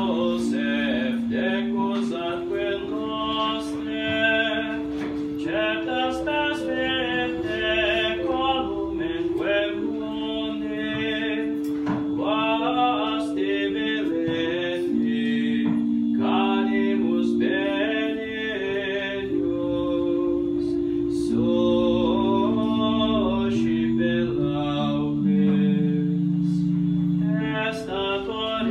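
A man singing a Latin hymn to St Joseph, with an electronic keyboard holding sustained organ-style chords beneath the melody.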